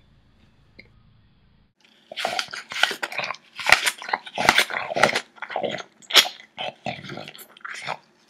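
A dog barking repeatedly in a rapid, irregular series of loud barks, starting about two seconds in.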